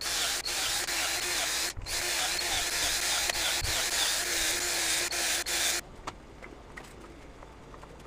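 Cordless drill running a bit through a pocket-hole jig, boring pocket holes into a board. One short run, a brief stop just under two seconds in, then a longer run that stops about six seconds in.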